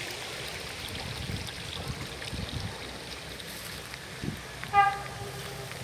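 Open-air ambience with a steady hiss and irregular low thumps. Near the end comes a single horn-like toot lasting about a second.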